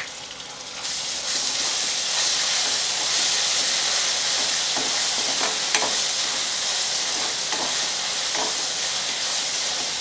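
Ginger-garlic paste sizzling as it fries in hot oil with onions in a kadhai, being stirred with a metal spoon that scrapes the pan now and then. The sizzle grows louder about a second in, as the paste is spread into the oil.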